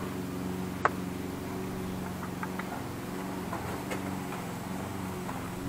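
Pool filter pump's magnet-rotor motor giving a steady electrical hum, with one sharp click about a second in and a few light ticks after it.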